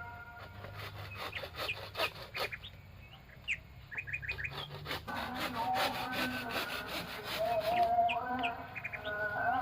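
Forest birds chirping and calling, with quick short chirps and longer whistled notes that swell in the second half. In the first half, a rapid rhythmic rasping of strokes runs under them, like a blade working through wood or bamboo.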